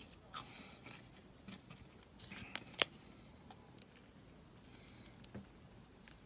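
Slime being handled: faint, scattered small clicks and crackles, with one sharper click a little under three seconds in.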